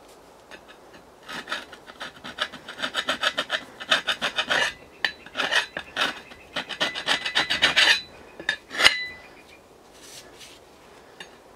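Hand file rasping back and forth across the steel head of a Collins double-bit axe in quick strokes, with a faint metallic ring at the end of some strokes. The filing stops about eight seconds in, and one sharp metal tap follows about a second later.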